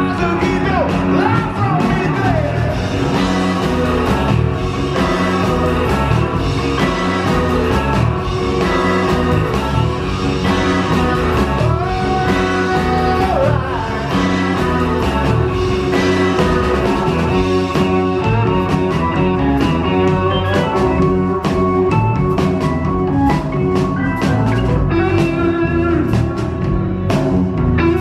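Live rock band playing an instrumental passage: electric guitar over bass and drums, with sharp drum and cymbal hits growing busier in the second half.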